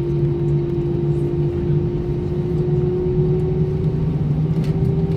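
Airbus A320-232's IAE V2500 turbofan engines heard from inside the cabin, running steadily as the aircraft lines up on the runway: a continuous hum and rush with a steady tone that creeps slightly higher and steps up a little about four seconds in.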